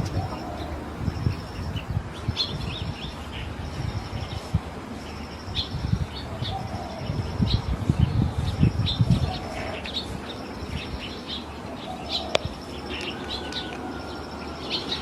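Small birds chirping, with a short high buzzing phrase repeated about once a second, over low rumbling noise.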